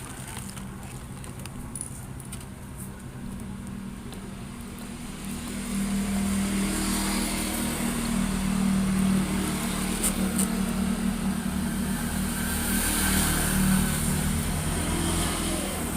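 A steady low motor hum, like an engine running, swelling about six seconds in and easing off near the end.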